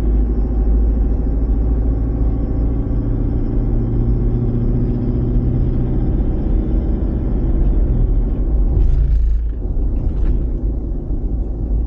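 A vehicle on the move: steady engine drone over heavy low road rumble. The engine note shifts about eight seconds in, and two short noisy bursts follow about nine and ten seconds in.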